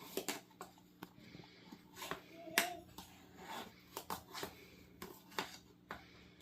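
Tablespoon measure scooping and levelling baking powder, making irregular light clicks and scrapes against the container.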